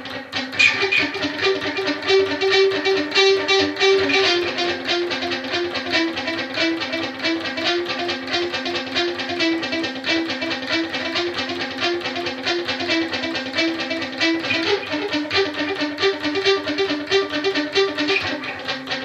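Electric guitar playing a quickly picked, repeating lead line that moves between a few notes, part of the song's guitar part.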